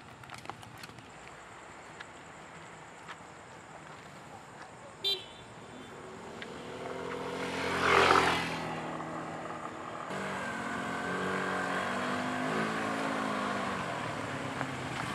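Motorcycle engine approaching on the road, swelling to its loudest about eight seconds in, then running on steadily at low speed. A short high beep sounds about five seconds in.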